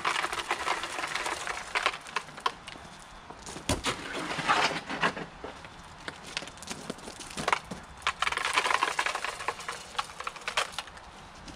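Steel shovel scraping and scooping wet concrete in a plastic mixing tub and knocking it into plastic jack-o'-lantern moulds, in three spells of scraping with sharp knocks between them.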